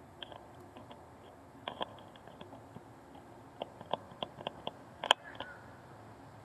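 A string of irregular, sharp clicks and ticks, about fifteen in all, bunched near two seconds in and again from three and a half to five seconds, the loudest about five seconds in, over a faint steady background.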